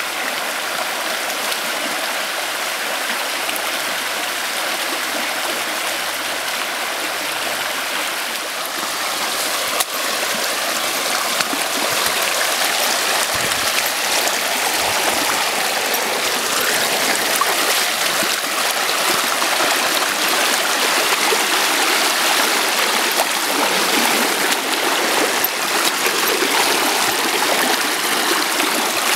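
Shallow river rushing over rocks: a steady wash of flowing water close to the microphone, growing louder about a third of the way in.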